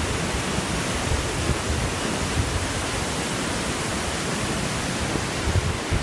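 Steady rushing roar of the Tahkadon waterfall, heard from above its cascade, with an uneven low rumble of wind on the microphone underneath.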